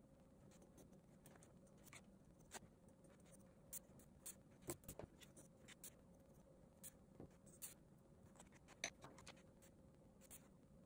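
Faint sound of drawing on paper with a pencil and a fine-tip pen: short, irregular ticks and scratches of the tip on the sheet.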